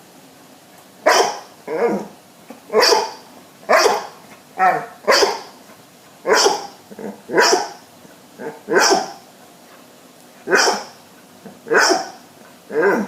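Dog barking repeatedly: a sharp bark every second or so, with softer, shorter barks in between.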